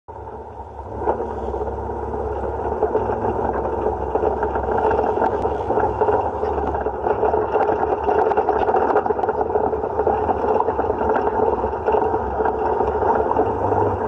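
Side-by-side UTV's engine running as it pulls away from a stop and rolls along a rough dirt trail at about 10 mph: a steady drone that grows louder over the first two seconds, with scattered small clicks and rattles.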